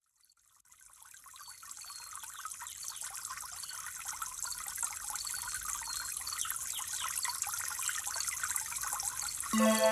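Trickling water fading in and growing steadily, with faint short high chirps over it. Background music comes in just before the end.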